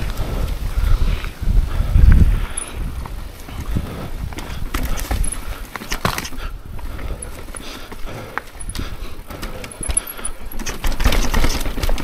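Mountain bike riding over rough, rocky trail: the tyres clatter and the bike knocks and rattles over the ground, with low rumbling that is heaviest about two seconds in and near the end.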